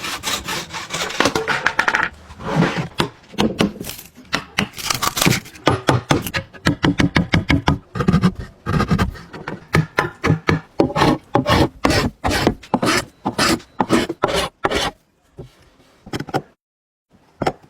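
A hand tool scraping and rasping wood in quick repeated strokes, about two to three a second. The strokes thin out near the end, and one last stroke follows a short quiet gap.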